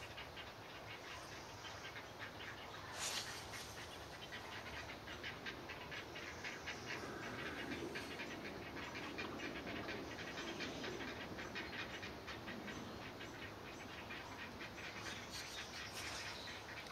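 Great blue heron nestlings' begging chatter: a fast run of dry ticks, many a second, that goes on without a break.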